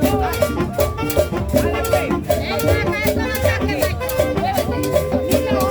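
Upbeat tropical dance music with a steady beat and shaker percussion.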